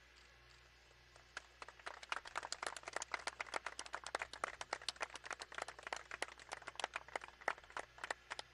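A small group of people clapping, starting about a second and a half in and thinning out near the end.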